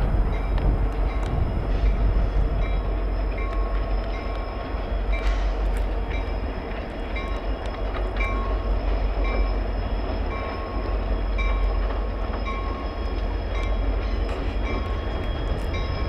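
CN diesel freight locomotives hauling a train over a bridge, a deep steady rumble.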